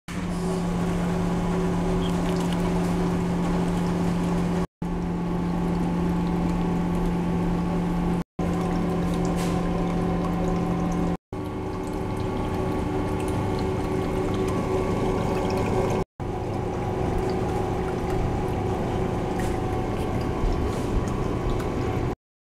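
Water pouring steadily from a hose into a tub, with a pump running, as water is circulated through a metal cooling plate under test. A low hum sits under the water until about eleven seconds in, and the sound cuts out briefly four times.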